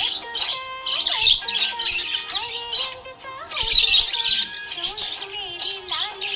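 Budgerigars chirping and warbling in rapid, jumbled bursts, loudest a little past halfway, over background music with held notes.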